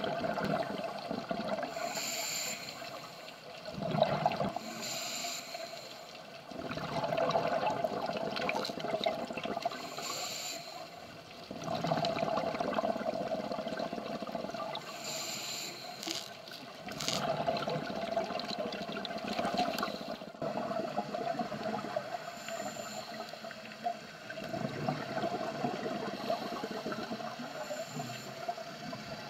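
Scuba diver breathing through a regulator underwater: a hiss on each inhale, then a rush of exhaust bubbles, repeating every few seconds.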